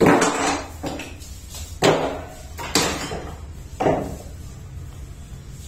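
Knocks and rattles of a glass sliding door, bumped as a calf is led through it: four loud bangs about a second apart, each ringing briefly.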